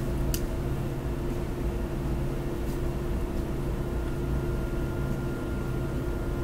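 Steady low background hum with a few fixed tones in it, like room machinery or ventilation. There is a faint click near the start, and a thin, higher steady tone joins about four seconds in.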